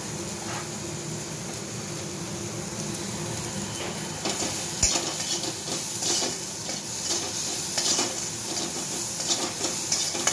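Metal spatula scraping and stirring onion, tomato and spices frying in a metal kadai, over a steady sizzle. The scraping starts about four seconds in and comes in irregular clattering strokes.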